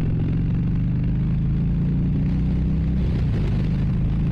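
Harley-Davidson Sport Glide's Milwaukee-Eight 107 V-twin pulling hard under acceleration, its exhaust note rising slowly in pitch, over wind noise from riding at speed.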